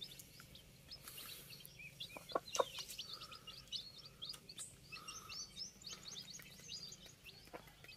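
Newly hatched country chicks peeping: a quick, continuous string of short, high cheeps, with a few soft taps mixed in.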